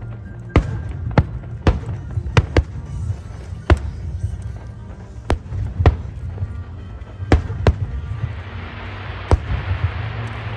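Fireworks bursting in a string of sharp bangs at irregular intervals, about a dozen in all, over a steady low background of music.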